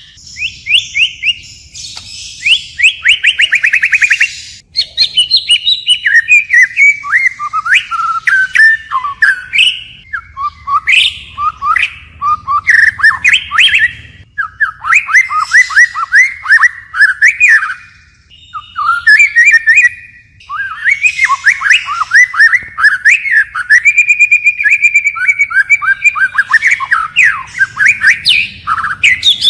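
White-rumped shama singing: a long run of loud, varied whistled phrases and fast trills, the song changing from one phrase to the next, with a few short pauses between bursts.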